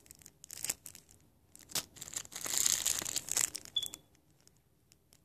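Small clear plastic zip bags of nail glitter crinkling and rustling as they are handled: scattered crackles at first, a louder dense stretch about two to three and a half seconds in, then stopping around four seconds in.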